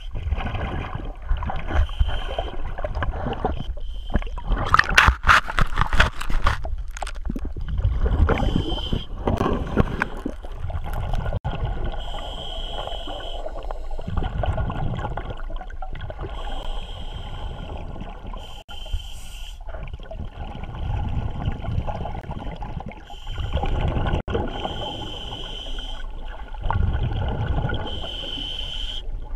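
Scuba regulator breathing heard underwater: a short hiss on each inhale, then a burst of gurgling exhaust bubbles on each exhale, repeating about every four seconds. The loudest bubble burst comes about five seconds in.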